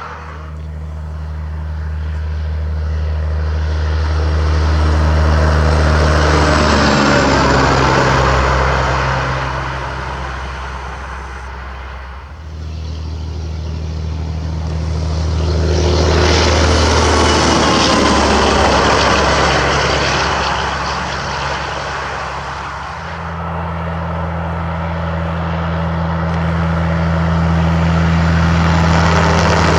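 Semi trucks driving past on a highway, three in turn. Each truck's engine drone and tyre noise swells as it approaches, and the engine note drops in pitch as it goes by.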